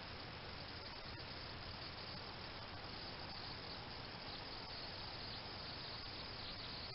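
Steady night chorus of crickets, a continuous high-pitched trill heard through the hiss of a trail camera's microphone, with one faint tick about a second in.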